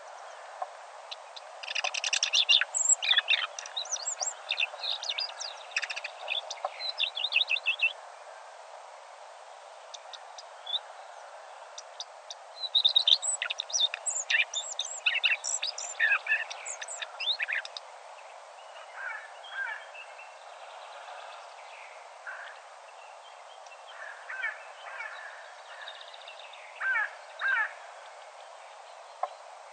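Birds singing outdoors: two lively bursts of quick chirps and trills in the first half, then fainter, scattered calls, over a steady background hiss.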